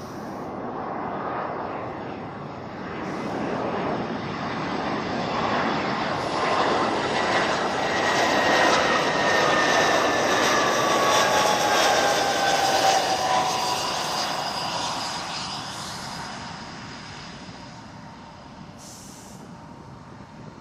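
Jet airliner's engines flying past: a rushing roar that swells for several seconds, peaks about halfway through, then fades, with a whine that drops in pitch as the aircraft goes by.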